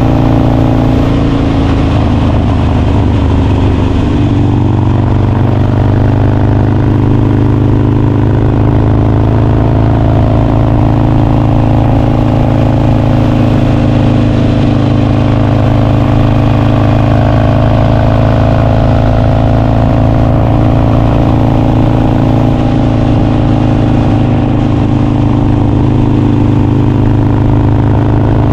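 2017 Harley-Davidson Sportster Roadster's air-cooled V-twin running steadily at idle through an aftermarket Vance & Hines exhaust, loud, with a small settle in pitch about four seconds in.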